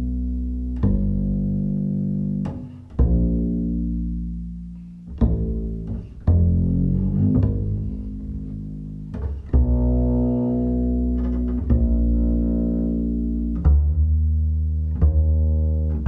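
Instrumental music in a low register without singing: separate sustained notes, each starting sharply and left to ring, a new one every one to three seconds.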